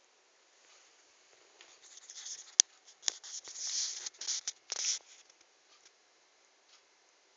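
Scratchy rustling against cloth for about three seconds, with one sharp click near the middle.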